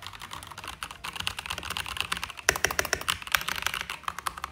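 Typing test on a Voyager Milky Way Edition 68-key mechanical keyboard with Gateron Yellow linear switches and a transparent acrylic case: a fast, continuous run of keystroke clicks, with a few harder strokes about halfway through. The sound is smooth and not very loud.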